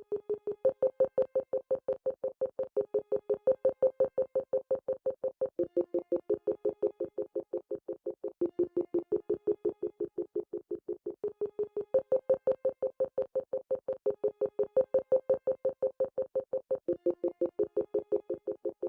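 Synthesizer beeping in Morse-code style: short, evenly spaced tones at about five a second, with the pitch stepping between a higher and a lower note every few seconds.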